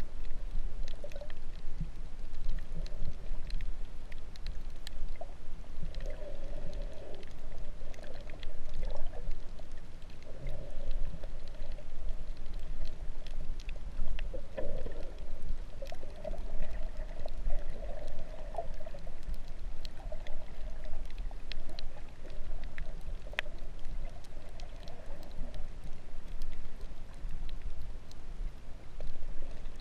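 Underwater sound heard through a GoPro's waterproof housing: a steady, muffled water rush with a low rumble, a wavering mid-pitched hum, and many small scattered clicks.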